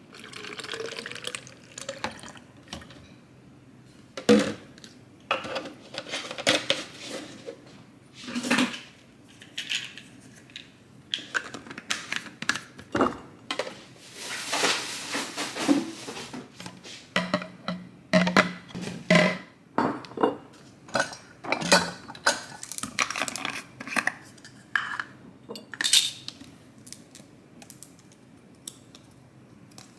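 Kitchen dishes and containers being handled and set down: irregular clinks, knocks and rattles throughout.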